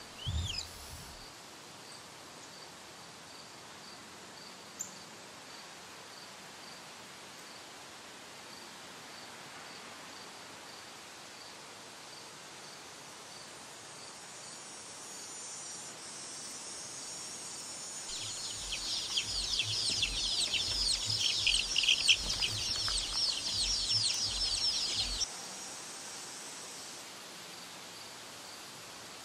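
Mostly a low steady hiss with a faint regular tick, then about 18 seconds in a dense chorus of many baby chicks peeping that cuts off suddenly some seven seconds later. A single chick peeps once at the very start.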